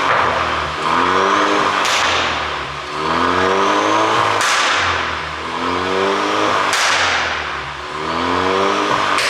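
Ford Mustang 2.3 EcoBoost turbocharged four-cylinder revved repeatedly, its pitch climbing about every two and a half seconds. Each rev ends in a sharp exhaust pop as the throttle closes, four pops in all. The pops come from an ECU tune set up to make them.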